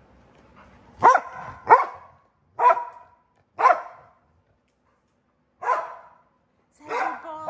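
A dog barking six times: single sharp barks about a second apart, with a pause of about two seconds before the last two.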